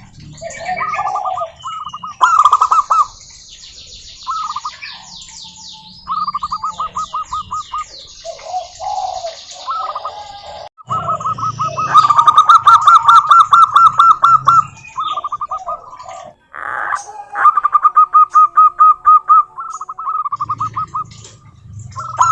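Zebra doves (perkutut) cooing: several phrases of rapid staccato notes, with the loudest run about halfway through. Smaller birds chirp and trill higher up between the phrases.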